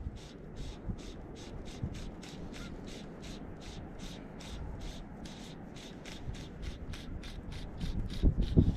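Sink-tip fly line being stripped in through the rod guides and fingers in short, quick pulls: a rhythmic rasp about four times a second, the retrieve of a pike fly. A couple of low thuds come near the end.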